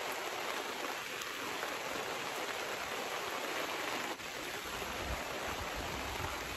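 Steady heavy rain falling on a canopy tent and the ground around it, an even hiss.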